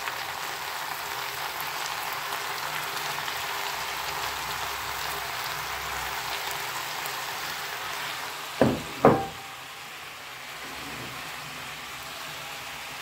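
Vegetables frying with a steady sizzle in a pan as chopped tomatoes and peppers are tipped in. Two sharp knocks come about eight and a half seconds in, and after them the sizzling is a little quieter.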